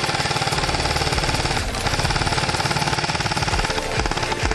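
Airsoft electric rifle firing on full auto: a fast, even rattle of shots with a steady motor whine, kept up almost without pause through a long string of fire.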